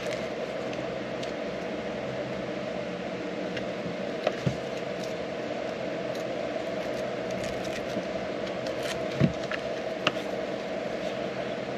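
Small handling sounds: a few light clicks and knocks, two about four seconds in and two more about nine to ten seconds in, over a steady background hum.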